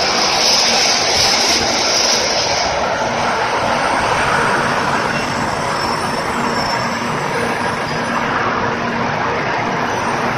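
N700 series Shinkansen pulling out past the platform: a loud steady rush of wheels and running gear, with a high hiss that fades about two and a half seconds in, leaving a steady broad noise.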